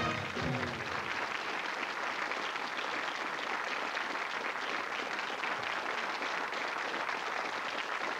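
Studio audience applauding steadily, with the last notes of a theme tune fading out in the first second.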